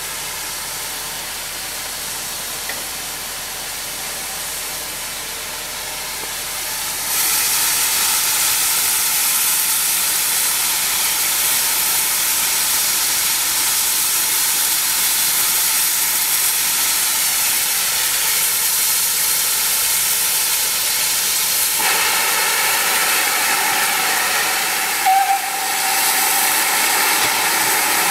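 Steam locomotive 7822, a GWR Manor class 4-6-0, standing with steam hissing, suddenly much louder from about seven seconds in and stronger again in the last quarter. A brief short tone sounds near the end.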